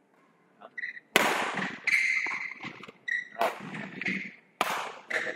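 Badminton rally: about five sharp cracks of rackets striking the shuttlecock, roughly a second apart, each ringing briefly in a large hall, with short squeaks of court shoes between the hits.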